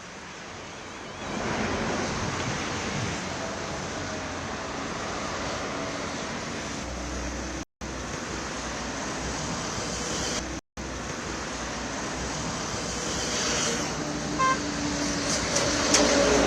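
Road traffic noise: a steady rush of passing vehicles, cut off twice for a split second.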